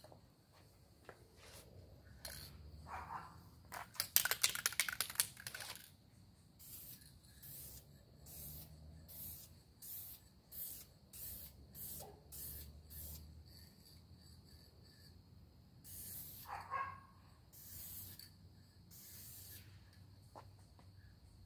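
Aerosol can of clear satin lacquer spraying in short hisses, about two a second for several seconds, then a few longer sprays near the end. About four seconds in there is a brief, loud, rapid rattle.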